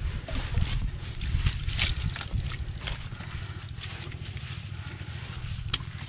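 Hands sorting through wet, muddy water-hyacinth debris on a plastic tarp: scattered rustling, crackling and squelching handling noise over a steady low rumble.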